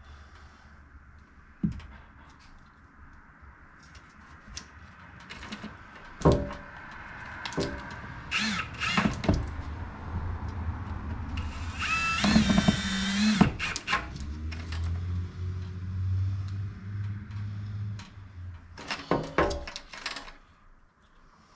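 Power drill driving screws into a wall in several short runs, the loudest about halfway through, with knocks and clatter between them.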